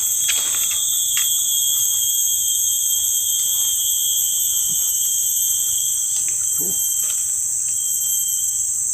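Steady, high-pitched insect chorus, a constant multi-layered drone with a few faint clicks near the start.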